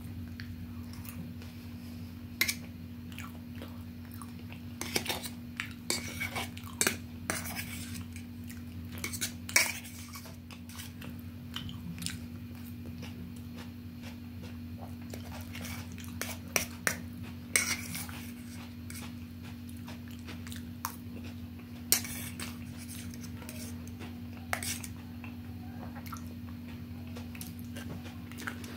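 Metal fork and spoon clicking and clinking against a stainless steel plate, in scattered single knocks, as food is cut and scooped from it.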